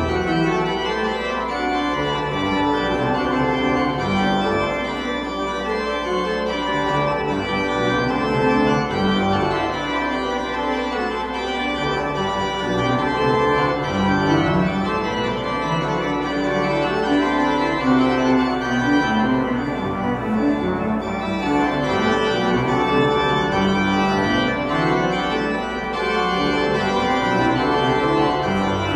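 Church organ playing slow, sustained chords that shift every second or so, at a steady level.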